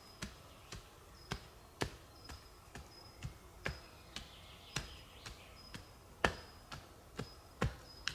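Sharp, evenly spaced ticks or taps about twice a second, some noticeably louder than others.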